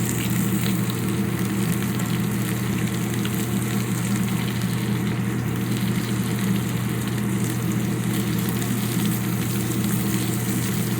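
Seasoned chicken strips sizzling in hot oil in a cast iron skillet as they blacken, a steady frying hiss over a constant low hum.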